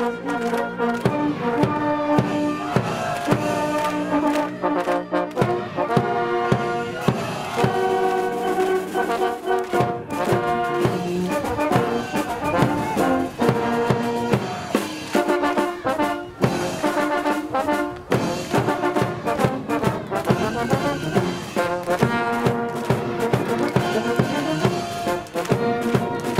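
A university cheering brass band, trumpets and trombones, playing a cheer tune over regular drum hits.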